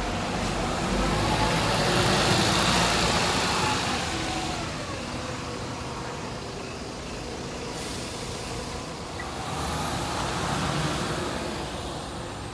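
City bus pulling away from the stop, its engine revving up as it accelerates off, loudest about two seconds in and then fading into the distance. About ten seconds in, another vehicle passes on the wet road.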